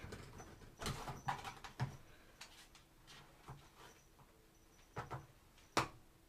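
Toilet paper rustling and tearing in short, irregular bursts as a kitten claws at and climbs the strip hanging from the roll. The sharpest, loudest crackle comes near the end.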